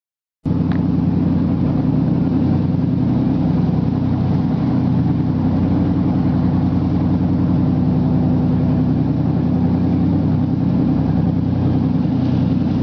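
Large tour speedboat's engines running steadily under way, a loud low drone with rushing water from the wake. It cuts in abruptly about half a second in.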